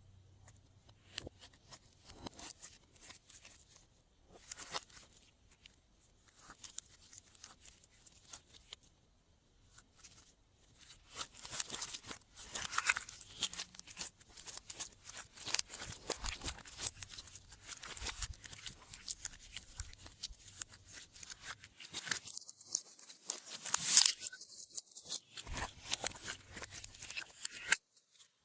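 Slime being worked by hand: a run of sticky crackles, pops and clicks. These are sparse at first and become dense and continuous from about ten seconds in.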